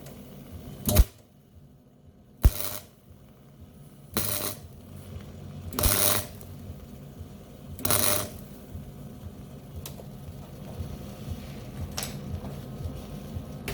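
MIG welder laying a plug weld in short pulses: three half-second bursts of arc noise about two seconds apart, after two sharp clicks, over a steady low hum.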